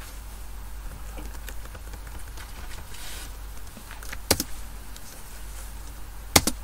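Computer keyboard keys being pressed: faint ticks, then sharp double key clicks about four seconds in and again near the end, over a steady low background hum.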